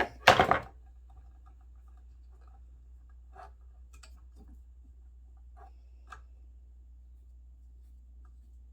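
Small parts and hand tools handled on an old intercom chassis during teardown: a short loud clatter near the start, then scattered light clicks and scrapes over a steady low hum.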